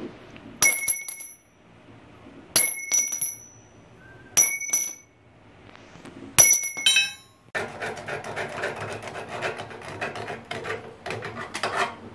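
Short cut lengths of 10 mm square steel bar dropping one after another onto a concrete floor, four times, each landing with a bright ringing clink and a quick bounce. Then a bare cut-off disc held in the hand is scraped rapidly back and forth across the steel bar in a dense rasping scrape.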